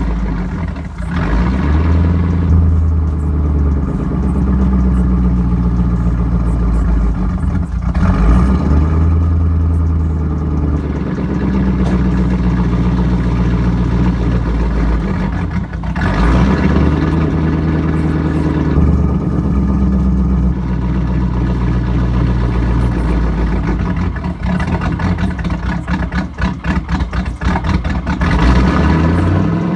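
Pontiac Firebird's LS1 V8 engine running, its pitch rising and falling several times.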